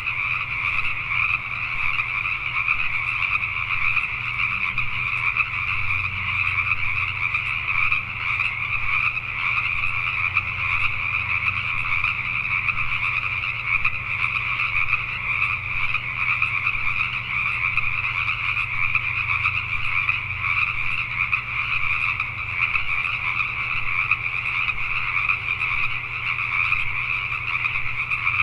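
A chorus of Pacific tree frogs (Pacific chorus frogs) calling at night. Many overlapping calls blend into one continuous, unbroken din.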